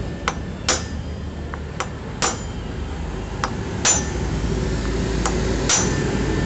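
Hammer tapping a steel socket used as a drift, driving a part flush into the hub of a Honda Vario scooter's CVT pulley: sharp metal-on-metal clinks, about eight strikes that come roughly in pairs.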